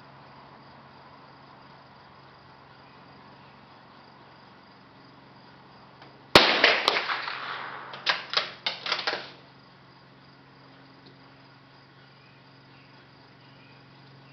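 A single shot from a Savage Mark II .22 rimfire bolt-action rifle, a sharp crack with a short decaying tail, followed about two seconds later by about five quick metallic clicks within a second as the bolt is worked.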